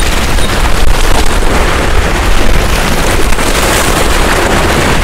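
Loud wind buffeting the microphone, a steady low rumble, over waves washing against the sea rocks.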